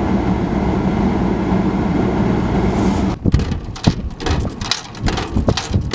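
Vehicle running, a steady noise with a low hum. About three seconds in it gives way to a string of irregular knocks and clicks.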